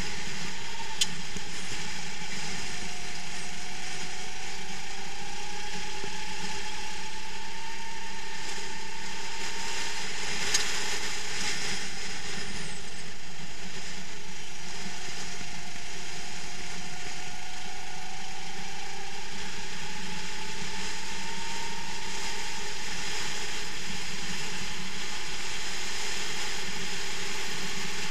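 Kart engine running under load, heard from a camera mounted on the kart, its pitch slowly rising and then dropping twice as the kart speeds up on the straights and slows into the corners. A steady mechanical rattle runs under it, with a couple of brief clicks.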